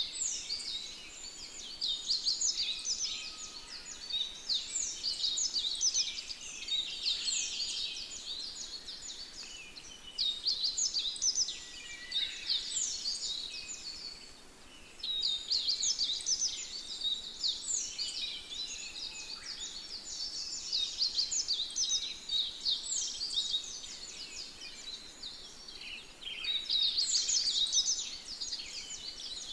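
Forest birds chirping in a dense chorus of many short, high, downward-sliding notes, coming in bouts with brief lulls between them.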